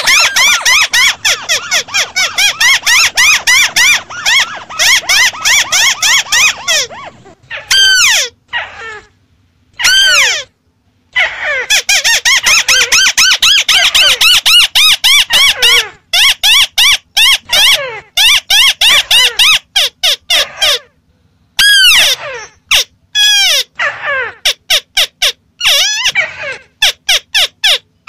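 White-browed crakes calling: fast, overlapping chattering series of high, arched notes, in loud bursts that stop abruptly and restart after short gaps. It is a looped lure recording used to call crakes in.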